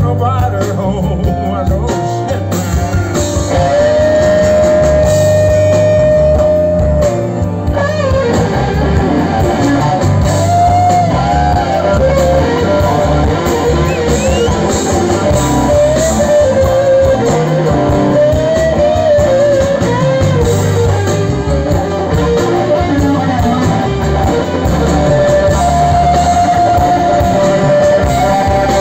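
Live electric blues band: an electric guitar plays a lead line of long held notes that bend up and down, over bass and drums.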